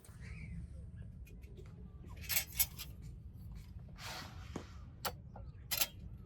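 Scattered light clicks and knocks of small objects being handled, with a brief rustle about four seconds in, over a steady low rumble.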